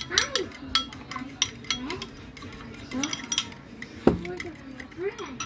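Beaten eggs being whisked by hand in a ceramic bowl with a metal utensil: quick, irregular clinks of metal against the bowl, then one louder knock about four seconds in.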